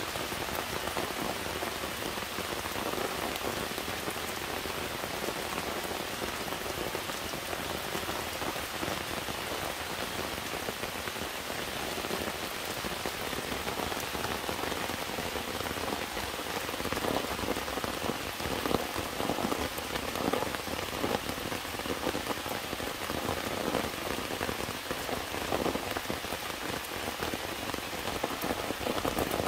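Heavy rain falling steadily, a dense hiss of rain on the ground and nearby surfaces. From about halfway through, louder separate drop hits stand out over the hiss.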